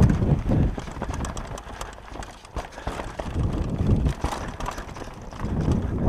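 Downhill mountain bike clattering and rattling as it rolls fast over a rocky dirt trail, tyres crunching on loose stones, with wind rumbling on the microphone. The rattle eases off about two seconds in and picks up again near the end.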